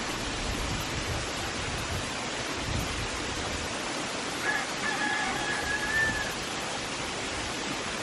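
Steady rushing of water spilling over a stone dam spillway, a waterfall about 8 feet high. About halfway through, a single long animal call rises over it, held on one pitch for nearly two seconds.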